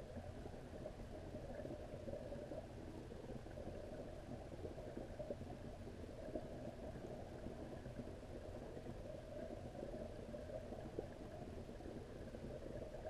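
Steady low underwater rumble and hiss heard through a camera submerged in a koi pond, with faint scattered ticks.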